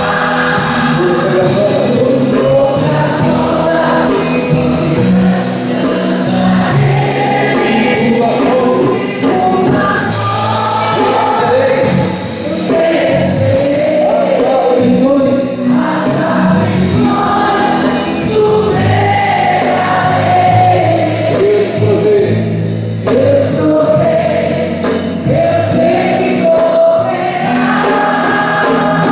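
Group of voices singing a Portuguese-language worship song together, with instrumental accompaniment.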